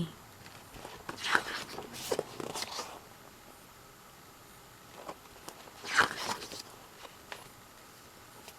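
Rustling and light scraping of paper and plastic as a music album's booklet, cards and inserts are handled, in two short spells, about a second in and again around six seconds in.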